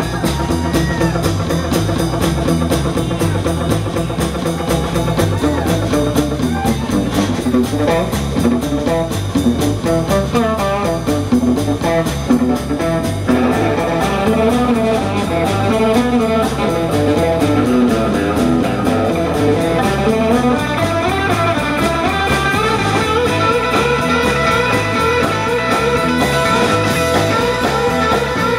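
Live blues band playing an instrumental stretch led by a guitar solo, quick runs of notes in the first half giving way to long held, bent notes, over a steady beat from the rhythm section.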